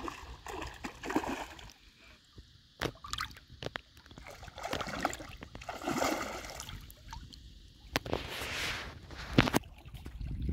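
Hooked rohu thrashing at the water's surface as it is played on a rod, in repeated bursts of splashing with a few sharp slaps.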